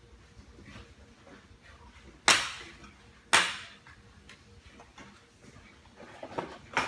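Two sharp snaps or knocks about a second apart, each dying away quickly, from handling accessory packaging, followed by faint clicks and rustling near the end.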